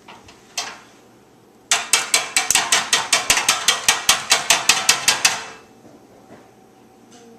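A hand-held kitchen utensil clicking rapidly and evenly, about five sharp ratcheting clicks a second for roughly four seconds, after a couple of single clicks.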